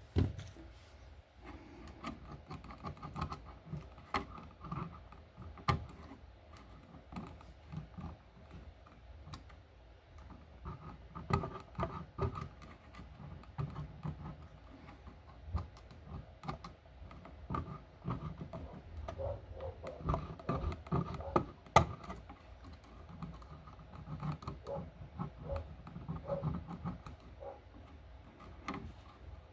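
Irregular small clicks, taps and scrapes of hand tools working on the wires and terminal screws of a wall receptacle, with one sharper click about two-thirds of the way through.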